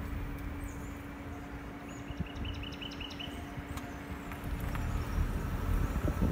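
A car driving slowly, with a low rumble of road and wind noise and a faint steady hum. About two seconds in, a bird sings a quick run of about eight short, high chirps lasting about a second.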